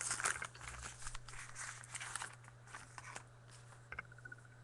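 Crinkling and crackling of trading-card packaging being opened and handled, dense for the first couple of seconds, then thinning to a few scattered rustles and clicks.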